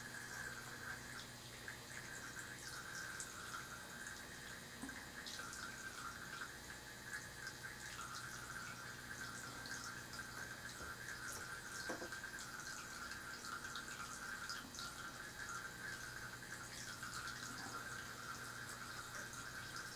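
Faint steady background noise: an even hiss with a low hum underneath and a few small scattered ticks.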